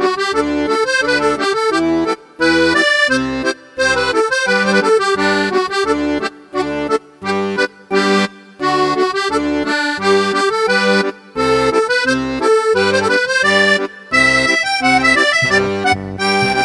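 Background music: an instrumental tune over a regular bass beat, stopping short for a moment several times.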